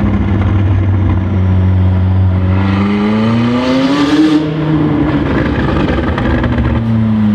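McLaren 600LT's twin-turbo V8, its pre-catalysts deleted, idling and then revved once. The pitch climbs over about two seconds and falls back to idle.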